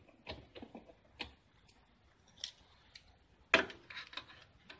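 Light clicks and knocks of a TV circuit board being handled and turned on the workbench: a few scattered taps, with the loudest knock about three-quarters of the way through.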